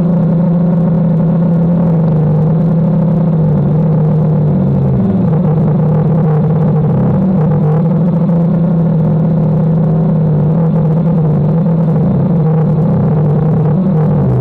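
DJI Phantom quadcopter's motors and propellers humming steadily at a constant pitch while it flies. The pitch dips briefly about five and seven seconds in and again near the end, as the throttle changes.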